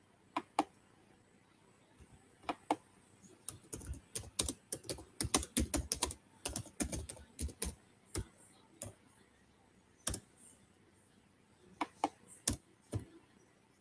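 Typing on a computer keyboard: scattered key clicks, with a quick run of keystrokes from about four to seven seconds in.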